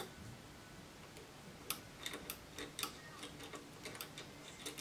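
Small light clicks and taps, irregular and closely spaced, mostly after the first second and a half: a tiny lock nut, screw and Allen key knocking against the printer's filament-sensor bracket as the nut is fiddled onto its screw.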